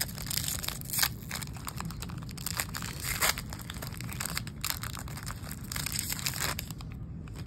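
Wrapper of a Topps baseball card pack being torn open and crinkled in the hand: a run of crackling rips and crinkles that dies down near the end.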